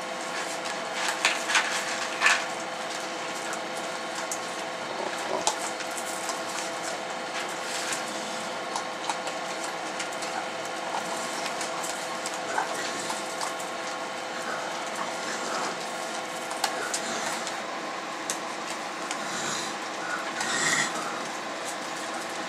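Raccoons eating dry dog-food kibble from a dish: scattered clicks and small knocks, thickest in the first couple of seconds and again near the end, over a steady hum.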